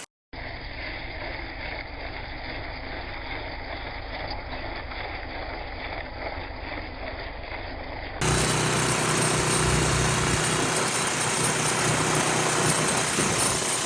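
An engine running steadily at idle, heard across two joined clips: a duller, muffled stretch, then after a sudden cut about eight seconds in a louder stretch with a deeper rumble and more hiss.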